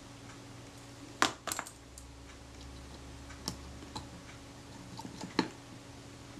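Small sharp metallic clicks and taps of steel tweezers and a tiny screw against the metal body of a Kodak Retina IIIS camera as the screw is set into its hole. A handful of separate clicks, the loudest about a second in.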